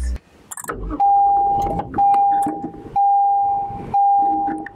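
A car's warning chime, sounding a long, steady beep at one pitch about once a second, with a few clicks just before the first beep.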